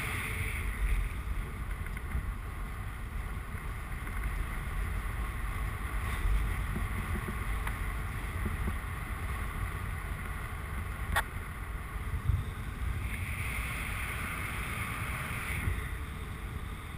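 Steady rushing of airflow buffeting the microphone of a paraglider pilot's camera in flight, a low rumble with no clear tones.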